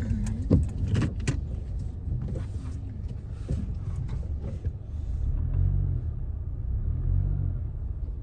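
Low rumble of a car's engine and road noise heard from inside the cabin, with a few sharp clicks in the first second or so.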